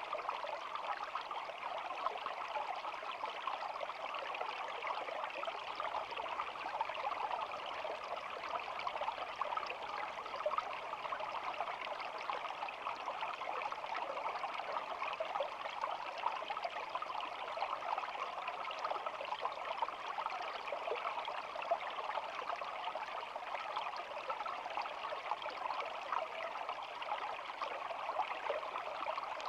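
Shallow stream of water flowing and babbling steadily over stones, an even trickling rush with no pauses.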